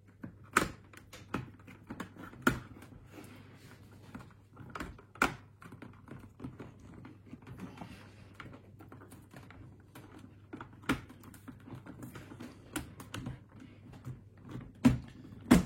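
Irregular plastic clicks and knocks from a motorcycle helmet visor being handled and fitted back onto the helmet shell, with two louder clicks near the end, over a faint steady low hum.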